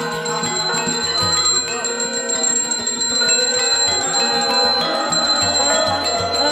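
A hand bell rung continuously with a steady high ring, typical of a Balinese priest's ghanta during a temple ceremony, over Balinese gamelan music.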